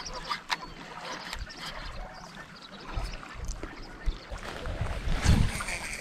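Wind buffeting the microphone in uneven gusts, strongest around five seconds in, over small waves lapping at the shoreline, with a few light clicks of fishing-reel handling near the start.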